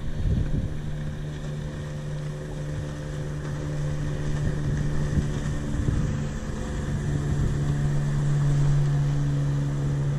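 A motorboat engine running steadily, a constant hum that gets a little louder in the second half, with wind buffeting the microphone.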